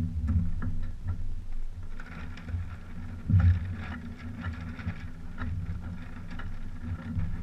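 Water slapping and lapping against the hulls of a small sailing trimaran lying still, over a steady low rumble, with a heavier slap a little over three seconds in.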